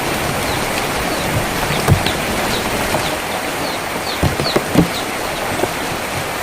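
Steady rain on a tin roof, with a few louder drops knocking on the metal, about two seconds in and several more past the middle. Small birds chirp briefly and repeatedly through the rain.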